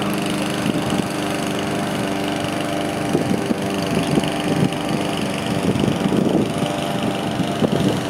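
Lawn mower engines running steadily in a continuous drone, with wind gusting across the microphone.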